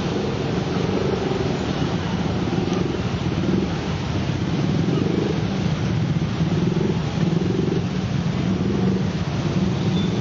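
Two coupled diesel-electric locomotives running light, their engines giving a loud, steady drone whose upper note swells and fades every second or two.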